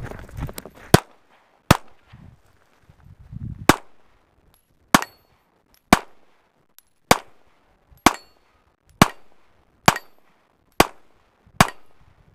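AR-15 rifle firing single shots: about eleven in all, the first few irregular, then a steady pace of about one shot a second.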